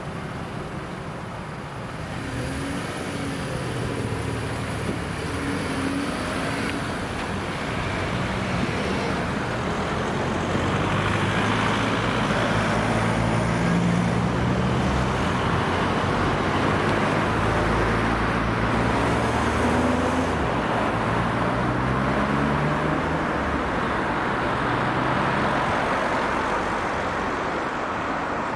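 Road traffic: cars and heavier vehicles such as buses or lorries driving past, several engines rising and falling in pitch as they pass and pull away.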